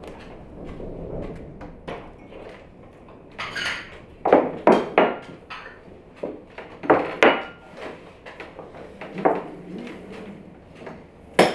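Tableware clinking and knocking on a table: tea glasses, saucers and plates set down and handled, and metal tongs lifting cookies onto plates. It is an irregular string of sharp clinks, loudest about four to five seconds in and again just before the end.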